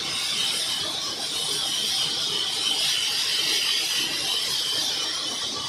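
Sawmill band saw running: a steady high hiss that holds at one level throughout.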